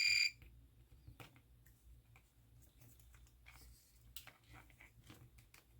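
A multimeter's continuity beep, one short high-pitched tone, followed by light clicks and taps of test probes and cable parts being handled.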